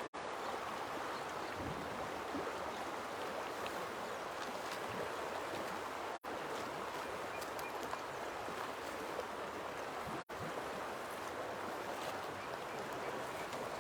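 Steady rushing outdoor noise with no distinct events, cut by brief total dropouts right at the start, about six seconds in and about ten seconds in.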